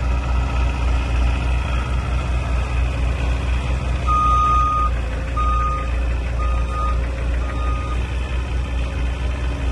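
CAT 304C mini excavator's diesel engine running steadily, with an alarm beeping four times about once a second from around four seconds in, the first beep the longest, typical of the machine's travel alarm as it moves.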